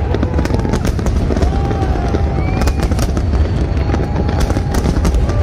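Fireworks display at full barrage: shells bursting in rapid, overlapping bangs over a constant low rumble, with dense crackling throughout.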